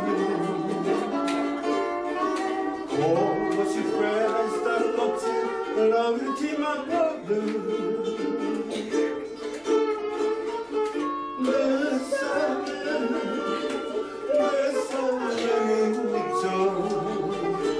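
Live Hawaiian music: ukuleles strummed with voices singing a melody into a microphone.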